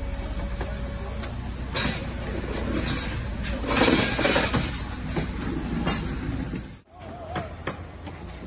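Metal clanks and clinks from a mechanic handling a Ducati race bike on its stand, over a steady low hum, busiest about four seconds in. Near the end the sound cuts off abruptly and gives way to a quieter hum with a few scattered clicks.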